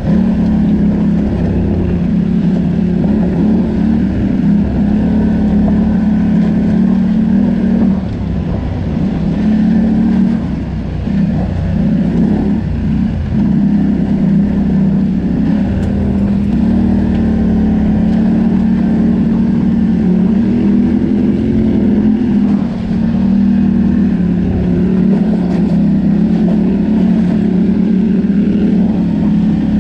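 ATV engine running steadily while riding a trail, easing off and picking back up between about 8 and 13 seconds in.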